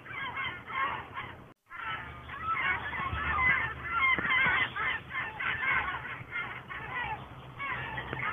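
Many birds calling at once, a dense stream of short calls over a faint low hum. The sound cuts out completely for a moment about a second and a half in.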